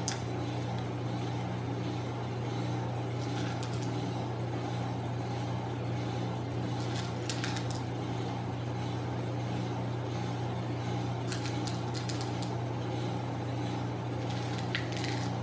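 A steady low hum runs throughout. Faint, brief rustles and light clicks come about four times as white chocolate chips are scattered by hand over brownie batter.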